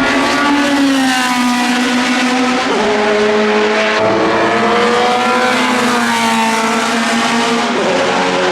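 Group C sports-prototype race car engine running hard at high revs under acceleration. Its pitch climbs, then drops sharply twice, about two and a half seconds in and again near the end, as it shifts up a gear.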